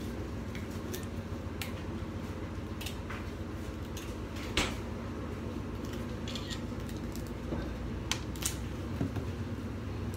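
A steady low hum with scattered small clicks and taps, the sharpest about four and a half seconds in and two more close together near the end.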